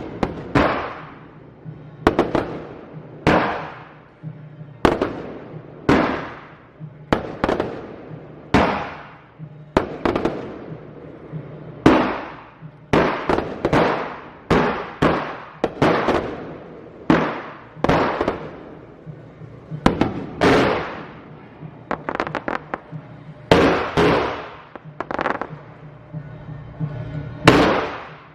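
Fireworks bursting in a steady series, roughly one loud bang a second, each bang followed by a fading echo.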